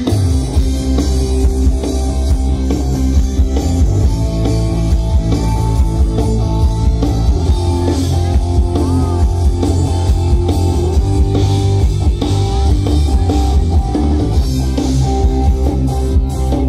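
A live band with electric guitar, bass and drum kit plays through a large outdoor PA during a sound check. It is heard from the crowd, loud and heavy in the bass.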